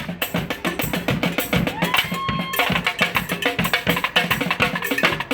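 A street brass band's drums playing a fast, busy beat, with one short held tone about two seconds in.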